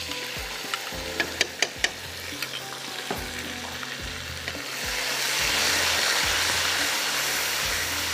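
Yogurt sizzling in hot oil with fried onions and green chilies in a frying pan, with a few sharp clicks in the first two seconds. From about five seconds in, the sizzle grows louder as the yogurt is stirred in.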